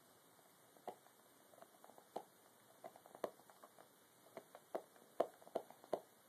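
A dog chewing its own claws: faint, irregular little clicks and snaps of teeth on nails, coming more often and a bit louder in the second half.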